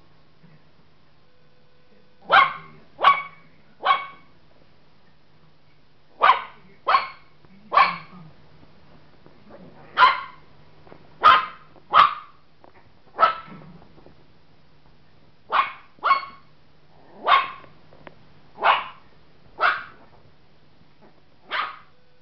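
A dog barking: about sixteen short, high barks in loose runs of three or four, with pauses of a second or two between the runs.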